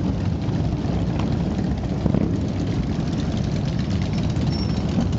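Many motorcycle engines running together in a steady, dense rumble.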